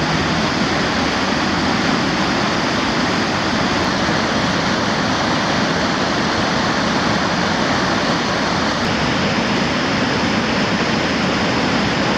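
Floodwater rushing in white water over a dam spillway and down river rapids: a steady, loud rush of water.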